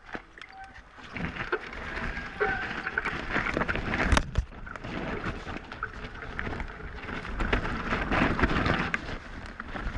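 Mountain bike riding fast down a wet, muddy trail: tyres rolling on the dirt and wind rushing over the camera microphone, with the bike rattling and knocking over bumps and a sharp knock about four seconds in. The rush swells about a second in.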